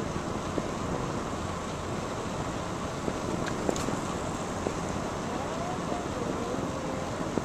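Steady wind rush on the microphone from riding a bicycle, with light clicks and rattles scattered through it.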